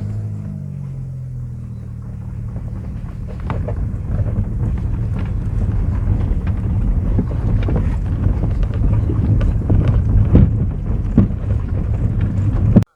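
A motor vehicle's engine running: its note falls in the first couple of seconds, then settles into a steady low rumble that grows louder, with wind buffeting the microphone. It cuts off suddenly near the end.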